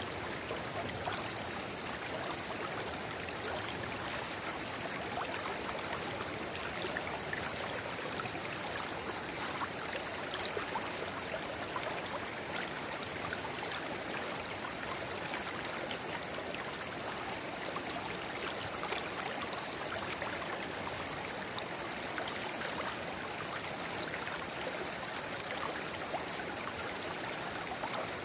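River babbling steadily, with a narrow spring-fed rivulet running into it: an even rush of water with many small splashes.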